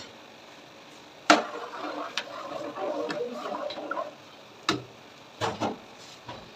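A few sharp clicks and knocks: a loud one about a second in, with a couple of seconds of scraping and rustling after it, then single knocks and a quick pair near the end.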